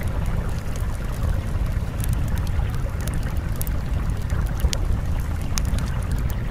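Steady rushing ambient noise, heavy in the low end, with scattered sharp crackles throughout: the masking background track of a subliminal audio.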